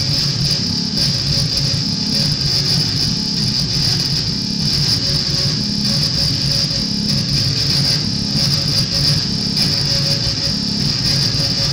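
Live electronic noise music: a steady, loud high hiss over a low throbbing drone that pulses about once a second, with a faint tone flickering in and out.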